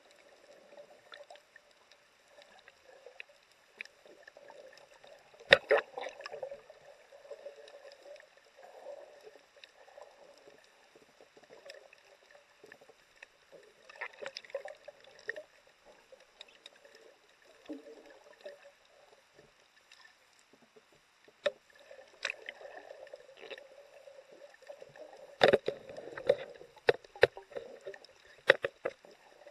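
Muffled underwater sound heard with the microphone under the surface: a low rush of water with scattered sharp clicks and knocks. There is a loud pair of clicks about five seconds in and a run of them near the end.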